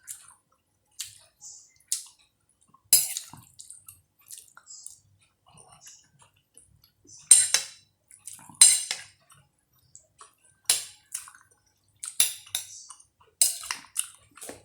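Metal spoon clinking against dishware while eating: sharp, irregular clinks, the loudest two about seven and nine seconds in, with quiet gaps between.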